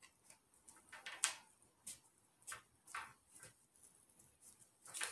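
Scissors snipping at a wooden chain-link animal toy to cut off its head link: faint, irregular clicks and snips, the loudest near the end.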